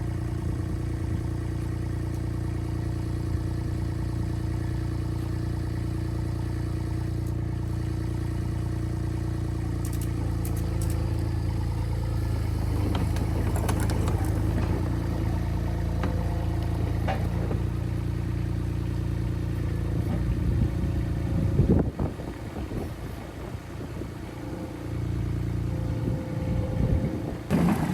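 An engine running steadily at idle, with some knocks and clatter over it. About two thirds of the way through there is a loud knock, the engine sound drops away for a few seconds, then it comes back.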